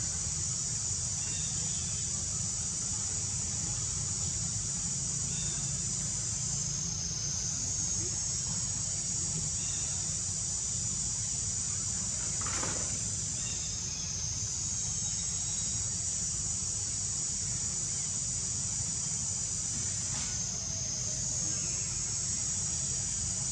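Steady high-pitched insect chorus that dips briefly about every seven seconds, over a constant low background rumble.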